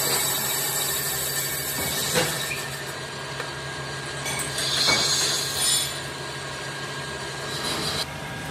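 Metal lathe turning a cast iron brake disc: the tool scraping across the spinning face over a steady motor hum, with a high metallic screech that grows brighter midway. The cutting noise stops about eight seconds in.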